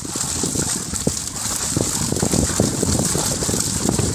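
Fish thrashing and splashing in a fishing net pulled into shallow water: a dense, irregular patter of small splashes and slaps, over a steady hiss.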